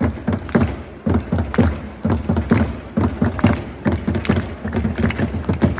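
Football crowd in a stadium beating drums in a steady rhythm, about two beats a second, with crowd voices underneath; the beats quicken near the end.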